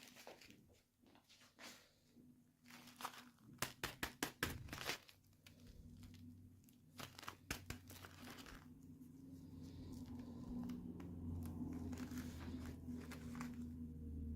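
Packaging being handled and opened: crinkling and tearing, with a quick run of sharp clicks about four seconds in. From about nine seconds a steady low hum comes in.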